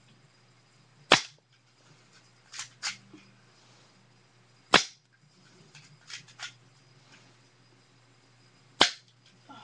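Airsoft pistol firing three sharp snaps, about a second in, near the middle and near the end, with fainter clicks of the gun being handled in between. The magazine spring is misfeeding, so the shots come slowly and irregularly.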